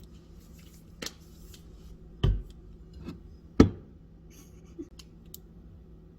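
Objects being handled: a handful of separate sharp knocks and clicks, the loudest two about two and three and a half seconds in.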